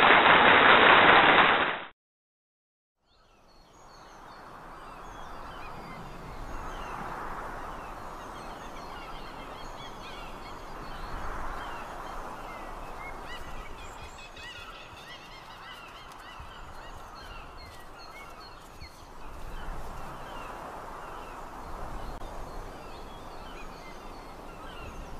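A loud rushing noise, like rain or applause, cuts off suddenly about two seconds in. After a second of silence, a steady background haze fades in, dotted with many short high calls, like a flock of birds calling.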